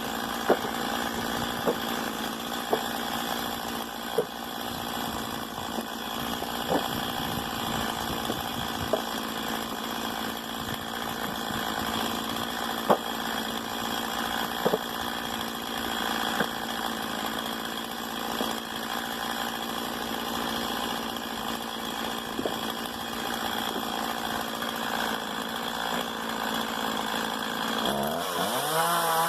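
Stihl MS 170 two-stroke chainsaw idling steadily, with scattered sharp ticks. Its revs climb about a second before the end.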